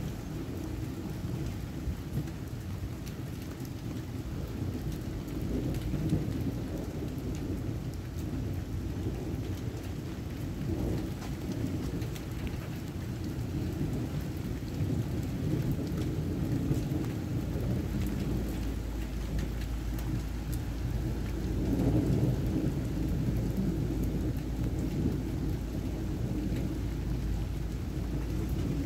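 Steady rain pouring down, with low rumbles of thunder rolling through it that swell several times, loudest about two-thirds of the way in.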